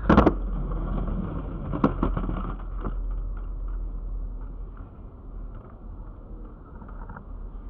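Skateboard on concrete: sharp knocks of the board against the ledge and pavement three times in the first three seconds, then its wheels rolling along the sidewalk, fading away.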